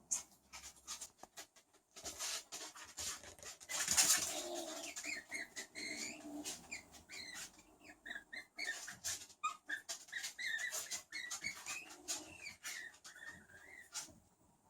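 Skunk vocalizing: many short, high chirps and squeaks among rapid clicks, with a brief rush of noise about four seconds in.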